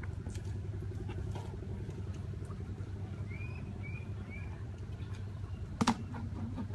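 Steady low rumble, with a bird chirping three short times in the middle and a single sharp knock near the end as a plastic bucket is handled.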